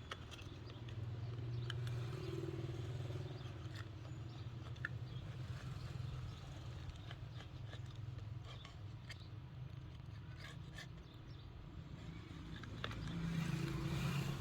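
A small tool scraping and ticking against a phone's frame, clearing old adhesive and bits of cracked LCD, with scattered short clicks over a low steady hum.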